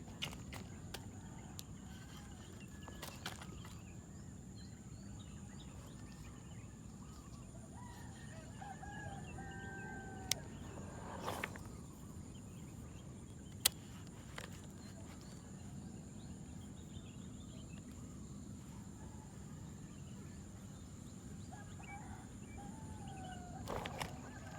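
Bird calls with rooster-like crowing over steady outdoor background noise, with a few sharp clicks.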